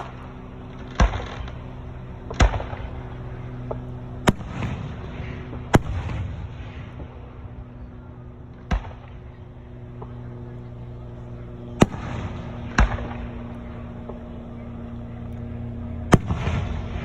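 Aerial firework shells bursting: eight loud bangs spaced one to three seconds apart, several trailing off into crackling. A steady low hum runs underneath.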